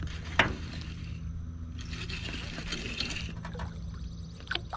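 Hooked largemouth bass splashing at the surface as it is reeled toward the boat, with a sharp knock about half a second in.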